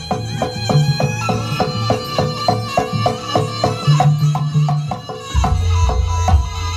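Javanese jaranan (kuda lumping) ensemble music: a fast, even run of short, bright struck notes over drumming and low held tones, the low tones dropping deeper about five seconds in.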